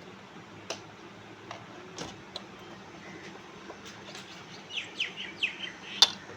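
Small birds chirping: a quick run of short, falling chirps about five seconds in, with a few sharp clicks scattered through and the loudest click near the end.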